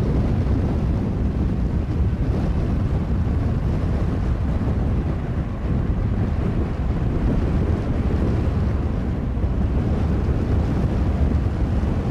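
Boeing 757-200's Pratt & Whitney jet engines at takeoff thrust, a steady low rumble as the jet lifts off and climbs away, mixed with strong wind buffeting the microphone.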